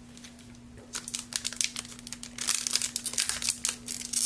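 Foil wrapper of a trading-card booster pack crinkling and tearing as it is pulled open by hand, starting about a second in and getting louder towards the end.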